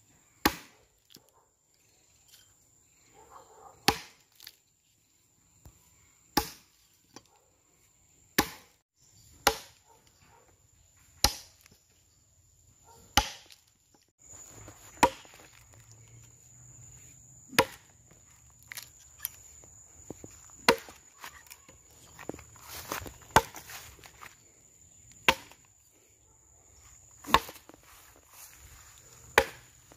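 Axe chopping into a solid wooden log, hewing chips off a block being shaped into a mortar, one sharp strike about every two seconds.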